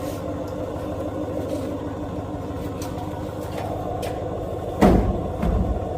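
A vehicle engine idling steadily. About five seconds in comes one loud, heavy clunk and a smaller knock right after, as the heavy trailer is lowered onto the hitch.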